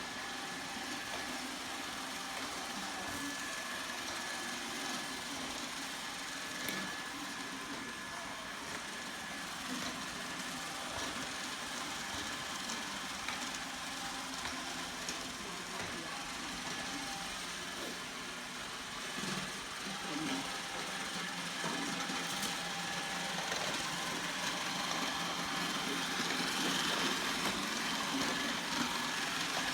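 Roomba robot vacuum running, a steady motor whir with a few faint clicks.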